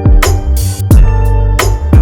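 Background music with a steady beat: heavy kick drum and sustained bass and keyboard notes.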